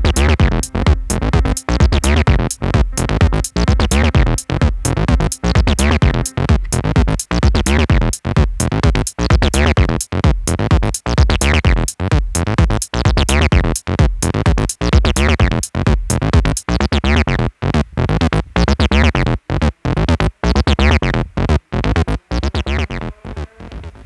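Electronic music played on a portable keyboard and smartphone music apps: a drum-machine beat and synth bass under keyboard parts, chopped by short gaps at an even pulse. The music stops near the end.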